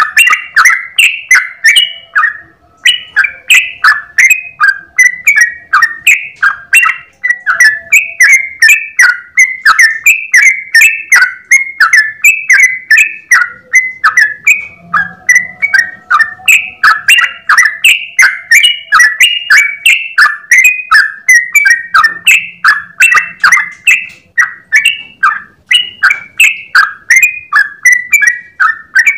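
Yellow-vented bulbul (trucukan) singing a long, unbroken run of quick, clear notes, about three a second, each bending up and down in pitch.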